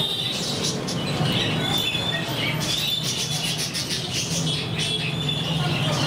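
A flock of budgerigars chattering with many quick chirps and squawks over a steady low hum.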